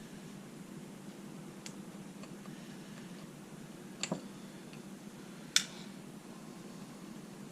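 A few small sharp clicks and taps from a mortise lock cylinder being handled and taken apart: a faint click, a double click about four seconds in, and the loudest, sharpest click about five and a half seconds in, over a low steady hum.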